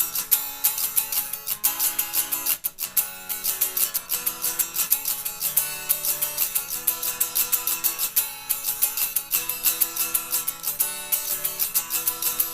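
Guitar strumming chords in a quick, steady rhythm of many strokes a second.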